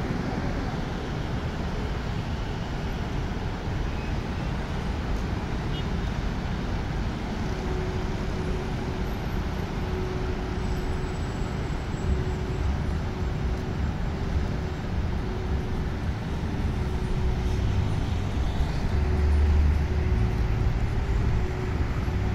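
Steady road traffic from a busy city intersection, heard from high above the street as one continuous wash of passing vehicles. A deeper rumble swells for a few seconds near the end.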